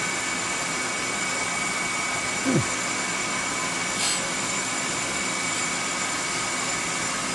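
Grinder running steadily, a constant hiss with a steady high whine, its wheel turning as an end mill is fed in for sharpening. A brief falling sound about two and a half seconds in.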